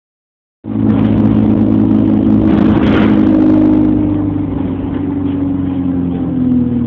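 A bus's engine and drivetrain heard from inside the passenger saloon: a steady drone that starts about half a second in, with a brief hiss about three seconds in, then easing slightly in pitch and loudness after about four seconds.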